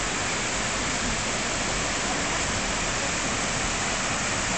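Shallow mountain river rushing over stones and riffles, a steady wash of running water.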